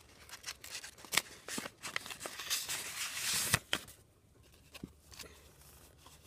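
A homemade folded-paper booster pack being opened by hand: paper rustling with small clicks and scrapes for about four seconds, then quiet with a few faint ticks.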